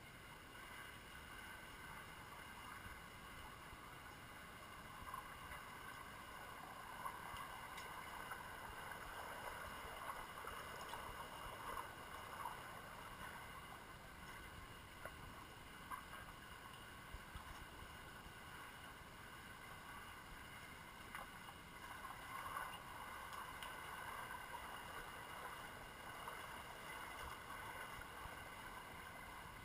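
Faint underwater swimming-pool ambience: a steady hiss with scattered light clicks and the bubbling churn of swimmers kicking at the surface.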